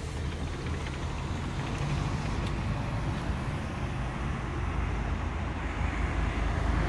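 Steady road traffic noise from the street below, growing louder over the first couple of seconds as the balcony door opens, then holding steady.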